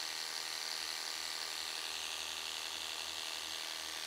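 Worx Hydroshot Nitro cordless pressure washer running steadily, its pump buzzing as the narrow water jet hisses onto concrete.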